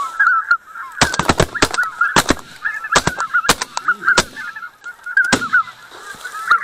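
A rapid volley of about a dozen shotgun shots from several guns, starting about a second in and ending near the end, some in quick pairs. Throughout, a flock of greater white-fronted geese keeps up a continuous high-pitched honking.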